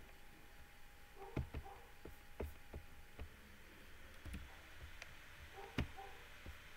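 A handful of faint, sharp clicks and knocks scattered over quiet room tone, the loudest about a second in and near the end, each of these joined by a brief pair of faint tones.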